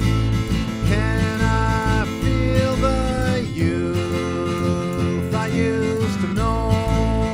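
Instrumental country-style music with guitar: a lead line of held notes that slide up and down in pitch, over a steady low bass.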